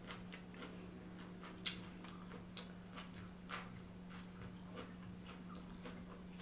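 Faint chewing and soft mouth clicks from people eating lettuce-wrapped shrimp rolls, a scattered click every half second or so, one a little louder about a second and a half in. A steady low hum sits underneath.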